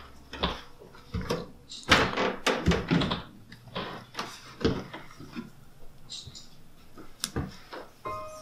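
A door opening and several people's footsteps knocking on wooden steps, irregular and uneven. A soft chiming tune begins near the end.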